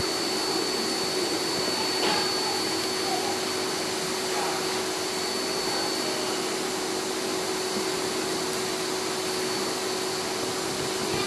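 A motor-driven air blower running with a steady whir, a low hum and a thin high whine. A faint small click comes about two seconds in.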